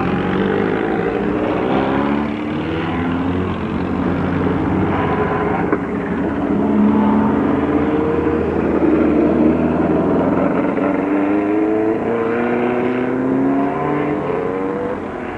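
Hill-climb racing car engine under hard acceleration, its pitch rising, dropping at each gear change and rising again several times.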